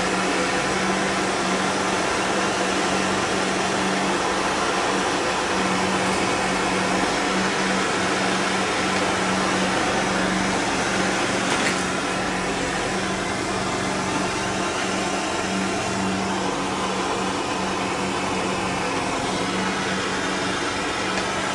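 Steady drone of a running machine, an even hiss with a low hum, easing off slightly about halfway through.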